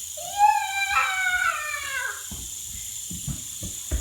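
A long, high-pitched drawn-out vocal cry that rises and then falls, lasting about two seconds, followed by a few soft knocks.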